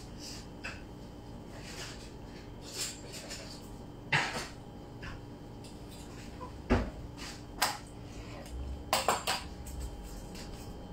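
Scattered clicks, clinks and knocks of kitchen tools and utensils being handled and set down on a worktable, with a heavier thump about two-thirds through and a quick run of knocks near the end, over a faint steady hum.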